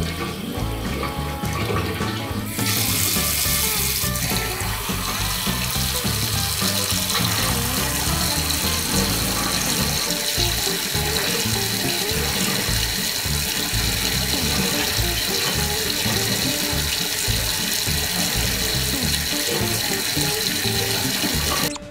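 Tap water running in a steady stream into a ceramic sink, louder from about two and a half seconds in, with background music.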